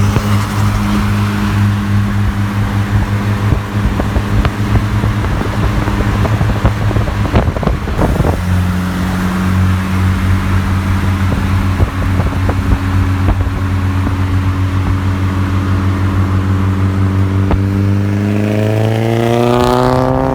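The VW Jetta GLI's 2.0-litre turbocharged four-cylinder engine is running steadily under way, over road noise. About eight seconds in the pitch breaks briefly, as at a gear change. Near the end the car accelerates and the engine revs up in a rising pitch.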